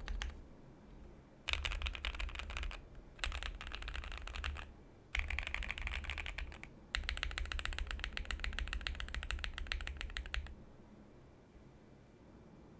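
Typing on a Keychron Q1 mechanical keyboard with lubed 62 g Tangerine linear switches, a steel plate and PBT Cherry-profile keycaps: rapid runs of keystrokes in four bursts separated by short pauses, stopping about two seconds before the end.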